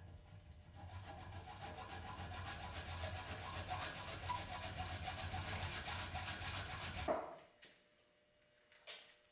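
Small hacksaw cutting through brass tubing held in a bench vise, a fast steady back-and-forth metal scraping. It stops abruptly about seven seconds in, with a faint knock near the end.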